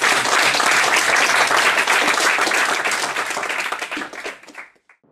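Audience applauding, starting at once and fading out about four and a half seconds in.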